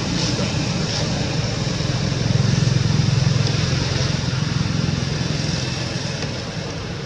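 A motor vehicle engine running steadily, growing a little louder a couple of seconds in and then fading toward the end.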